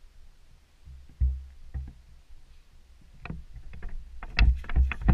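Footsteps and jostling of a carried action camera while hiking: a few scattered dull thuds and knocks, then a quicker, louder run of them near the end.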